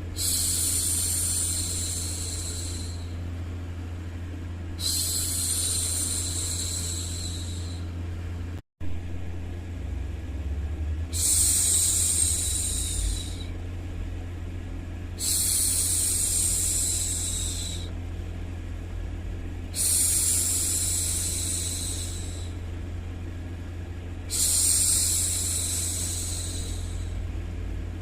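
A woman's hushing 'shhh', repeated six times, each shush lasting about two to three seconds with a pause of about two seconds between, over a steady low white-noise rumble. The sound cuts out for a split second about nine seconds in.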